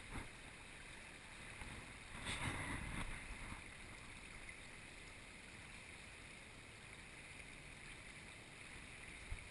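Quiet outdoor ambience by a river: a faint steady hiss, with a brief louder rush of noise about two seconds in.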